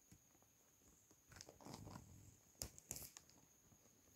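Faint scuffling and rustling of two cats tussling on a cushion and woven mat, with two sharp clicks about a second apart past the middle.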